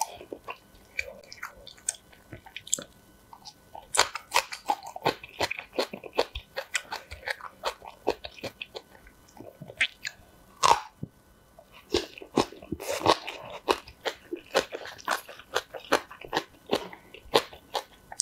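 Close-miked crunching and chewing of spicy kimchi, including green onion kimchi: many sharp, crisp bites, sparse at first and coming thick and fast from about four seconds in.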